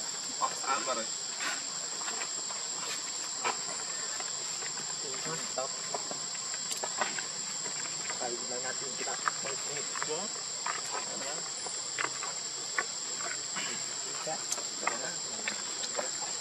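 Steady, high-pitched insect drone of crickets or cicadas, with scattered short clicks and rustles throughout.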